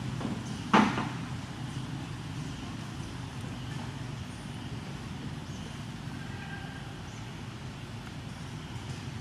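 Steady low outdoor rumble, with one sharp knock a little under a second in.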